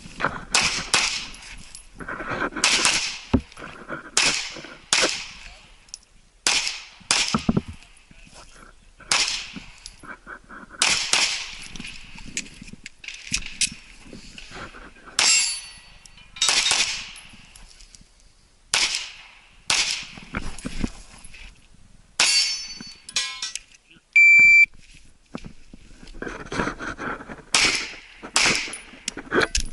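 Handgun shots fired in quick strings, often in pairs, each with a short echo. About 24 seconds in, a shot timer gives one loud beep, and a new string of shots follows.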